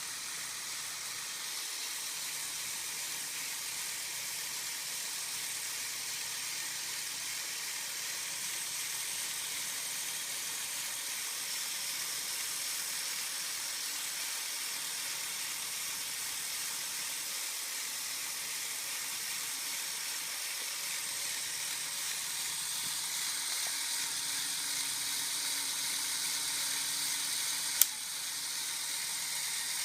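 Lego Technic model's electric motor and plastic gear train running steadily, a hissy high-pitched whir with a faint hum beneath. One sharp click near the end.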